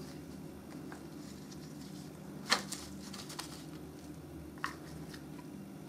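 Potting soil being scooped with a metal spoon into a small plastic cup: a few light clicks and rustles of spoon and plastic, the sharpest about two and a half seconds in.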